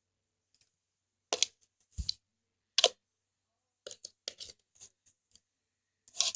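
Homemade glue-and-borax slime being squeezed and poked by hand, giving an irregular string of short wet pops and clicks, a few louder ones first, then quicker smaller ones.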